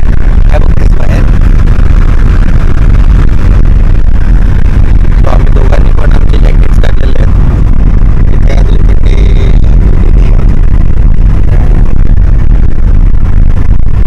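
Steady loud low rumble of a Suzuki car driving at speed, heard from inside the cabin: road and engine noise.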